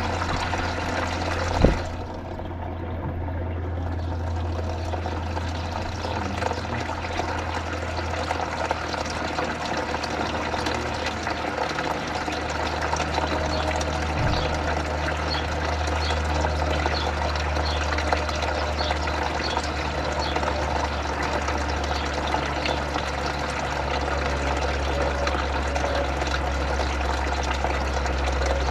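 Water running and splashing through a hydroponic growing system, steady throughout, over a constant low hum. A single sharp knock about two seconds in.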